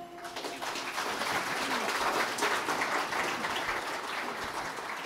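Audience applauding, the clapping swelling over the first couple of seconds and then slowly dying away.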